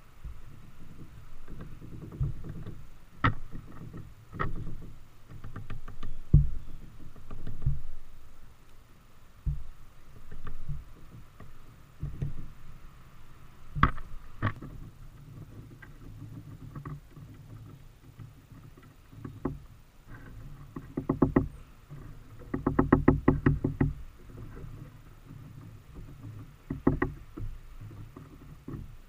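Knocks and runs of fast tapping close to the microphone, as tufted titmice land on the feeder and peck and hammer at seeds, over a low rumble that comes and goes.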